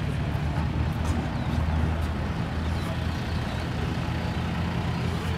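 An engine idling steadily with a low, even drone.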